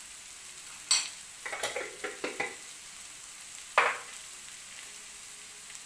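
Sliced onions, carrots and spices sizzling steadily in a wok on a gas stove, with a few sharp clicks and knocks, the loudest near four seconds in.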